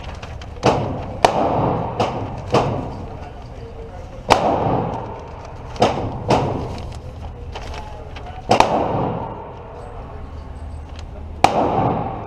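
Gunshots at a shooting range, about nine loud shots spaced irregularly, each trailed by a short echo, with a few fainter cracks between them.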